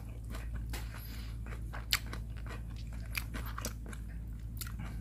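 Eating okonomiyaki: faint crunchy clicks of chewing mixed with a metal fork cutting the pancake in its paper box, with one sharper click about two seconds in.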